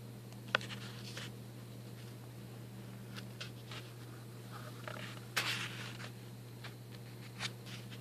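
Handling noise from a handheld phone camera being moved: soft clicks and scrapes, with a sharp click about half a second in and a louder scrape a little past halfway, over a steady low room hum.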